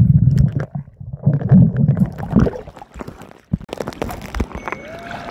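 Sea water sloshing and gurgling around a handheld camera as it moves between underwater and the surface while snorkeling. A muffled underwater rumble at the start breaks off into uneven splashes and knocks against the housing.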